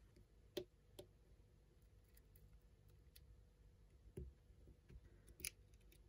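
Near silence with a few faint, short clicks and taps: tweezers and the small metal parts of an iPod Nano being handled. The clicks come once a second or so in, then again as a loose cluster in the last two seconds.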